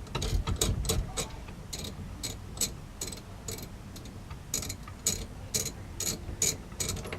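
Hand ratchet clicking in short runs of sharp clicks, about three a second, with brief pauses between runs: bolts being run down while a steering wheel is fitted.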